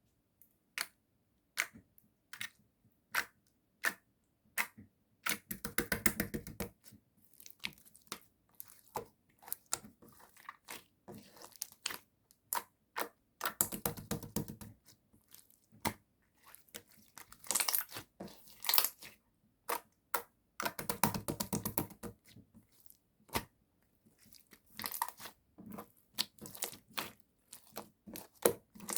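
Translucent purple jelly slime being squeezed, poked and pressed by hand: a string of sharp separate clicks and pops, with three longer stretches of dense crackling squishes.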